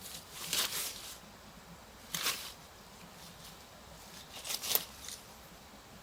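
Three short bursts of rustling and crunching over a faint steady hiss.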